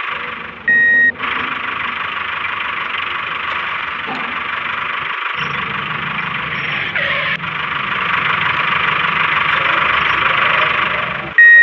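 Small electric motor of a DIY miniature tractor running steadily with a whirring noise, joined by a lower rumble about five seconds in. A short, loud, high beep sounds about a second in and again at the end.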